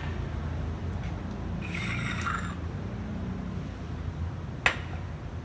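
A ceramic coffee cup and saucer being lifted off a stone counter, with a brief scraping clink about two seconds in. There is a sharp click near the end, over a steady low hum.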